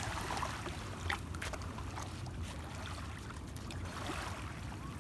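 Gentle shallow waves washing steadily on a sandy shore, with a low rumble under it and a faint tap or two about a second in.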